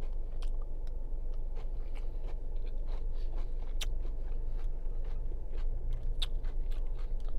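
A person chewing and biting food close to the microphone, with many short, sharp mouth clicks and crunches, over a steady low hum.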